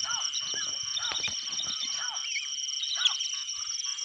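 Birds giving short arching calls, about two a second, over a steady high-pitched night insect chorus that trills rapidly.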